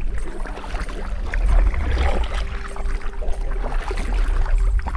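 Double-bladed kayak paddle strokes dipping and splashing in calm water, over a steady low rumble.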